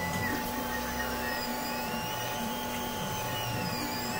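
Steady machine hum and hiss, with a faint high whine that slowly rises and falls.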